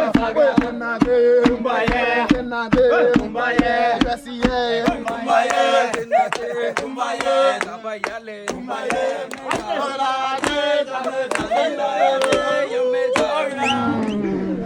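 Group of voices singing and chanting a Swahili song over steady, rhythmic thuds of a wooden pestle pounding roasted coffee beans in a mortar, about three beats a second.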